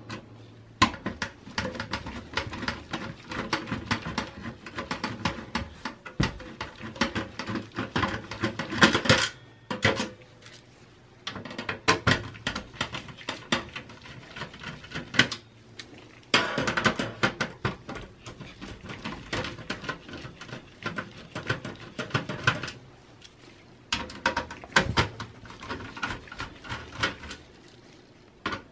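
Phillips screwdriver backing out the motherboard screws from a steel PC chassis: quick runs of small metal clicks and rattles, broken by a few short pauses.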